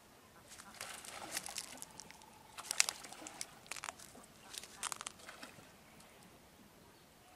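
An irregular string of short splashes and knocks, thickest in the first five seconds, from water being worked by hand and pole beside a wooden fishing boat.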